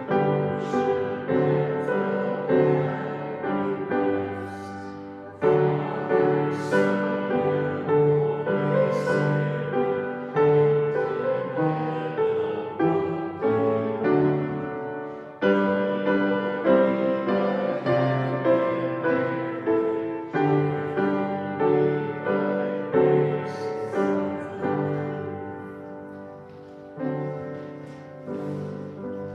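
Piano playing a hymn in slow chords, phrase by phrase, the last chord dying away near the end.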